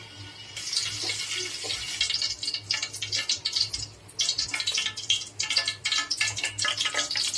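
Cooking oil heating in a steel pot, starting to sizzle about half a second in and crackling and spitting steadily from about two seconds on, with a brief lull near the middle.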